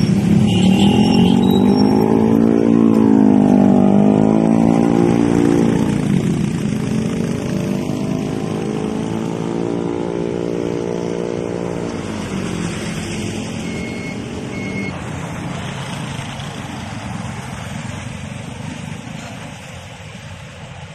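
Motor vehicle engines running close by, one after another, each with a pitch that rises and falls over a few seconds. The first is loudest. A steady traffic rumble follows and slowly fades.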